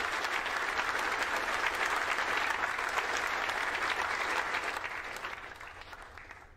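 Applause from a room of people, fading out near the end: the team clapping at the call that the Electron booster's main parachute has deployed.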